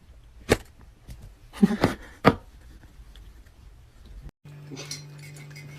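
A few sharp knocks: one about half a second in, then a quick cluster and another knock around two seconds. A steady low hum starts near the end.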